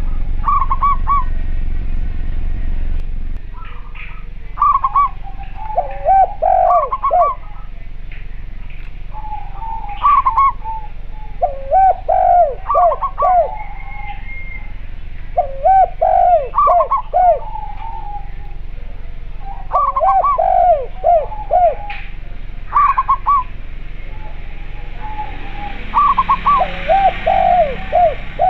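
Spotted dove (tekukur) and collared dove (derkuku) cooing in turn, phrase after phrase every few seconds: a higher series of short coos answered by a lower, rolling series. A low rumble runs under the first three seconds.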